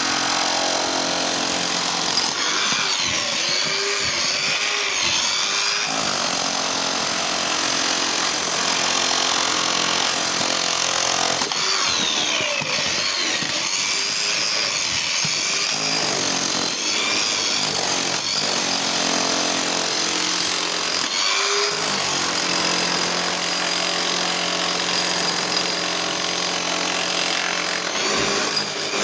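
Makita rotary hammer drill running without a break, its motor whine holding steady with a few brief shifts in tone along the way.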